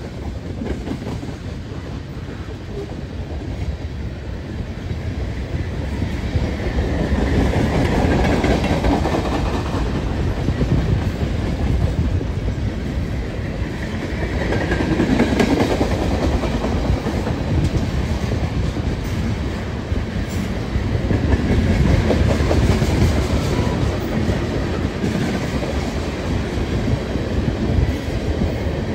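Freight cars of a long manifest train, boxcars and tank cars, rolling past at speed: a continuous loud rumble of steel wheels on rail with a clickety-clack of wheels over the rail joints. It grows louder over the first several seconds, then swells and eases.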